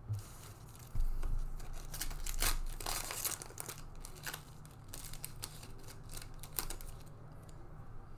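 Foil wrapper of a Panini Mosaic trading-card pack being torn open and crinkled by hand: a run of crackling tears and rustles, thickest about two to three seconds in.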